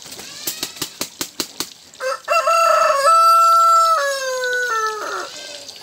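A rooster crowing: one loud cock-a-doodle-doo starting about two seconds in, with a long held note that falls away at the end. Before it, a quick run of about seven sharp clicks.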